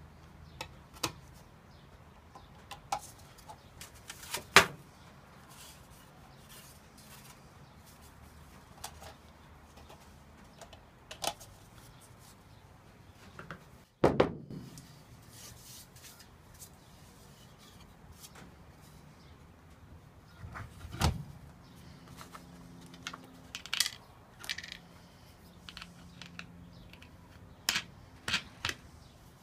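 Scattered clicks, taps and knocks of thin aluminium sheet panels and a plywood template being handled and set down on the pins of a wooden jig, and of wing nuts being fitted. A few louder sharp knocks stand out among the light clicks.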